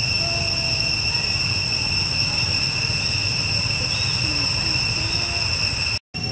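Steady insect chorus: a continuous high whine held at a few fixed pitches over a low steady rumble, with a few faint short calls scattered through it. The sound cuts out completely for a moment near the end.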